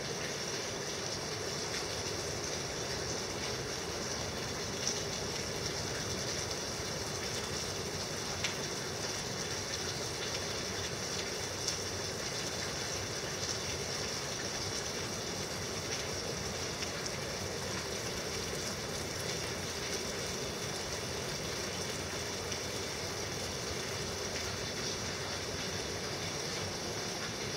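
Heavy tropical rain falling in a steady downpour, an even rushing hiss with a few sharper taps here and there.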